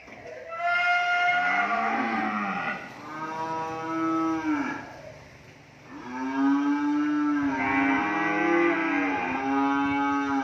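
Cattle mooing loudly: a series of long, drawn-out moos, each a second or two long and arching in pitch, with a short lull about halfway through before the calls run on almost back to back.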